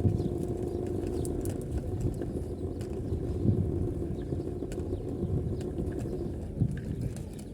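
Street noise heard while walking: a steady low hum of traffic with irregular light knocks.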